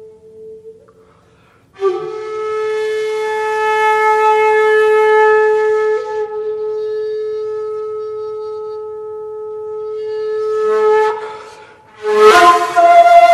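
Shakuhachi, the Japanese end-blown bamboo flute, holding one long low note with breathy air noise, swelling, easing off and swelling again before it stops. After a brief pause a sharp, breathy attack opens a new, louder note near the end.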